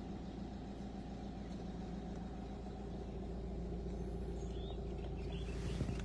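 Car engine running steadily, heard from inside the cabin: a low, even drone that grows slightly louder toward the end.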